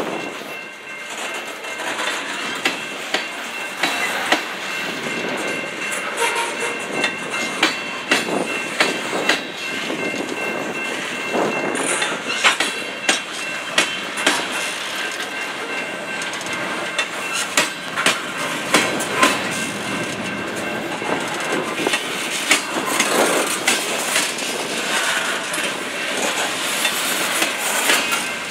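Steel wheels of a freight train's covered hopper cars rolling over a worn bolted rail joint, clicking and clacking in quick pairs as each truck crosses it, over the steady rumble of the passing cars.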